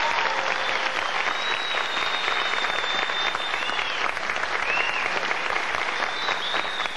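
Studio audience applauding with dense, steady clapping, and high, long whistles from the crowd above it.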